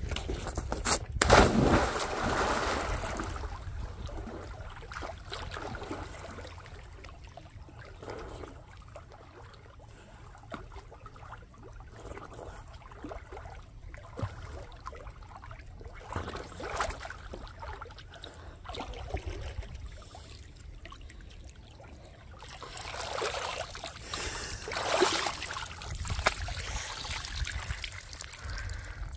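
Lake water sloshing and splashing at the shore, with louder splashing about a second in and again near the end.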